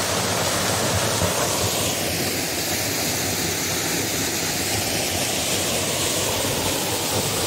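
Small mountain waterfall splashing steadily into a shallow pool, a constant even rush of water.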